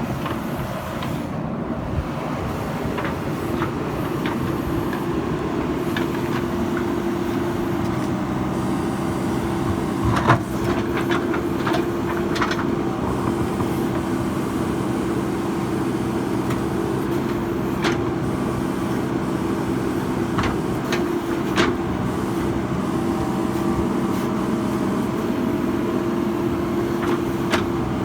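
JCB backhoe loader's diesel engine running steadily under work, with a few sharp metal clanks, the loudest about ten seconds in.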